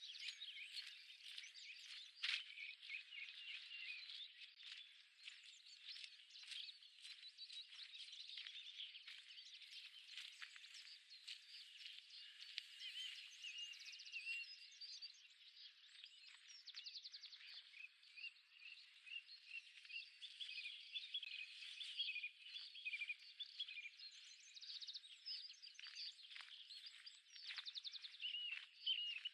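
Many birds singing at once in a faint, unbroken chorus of overlapping chirps, trills and whistled phrases.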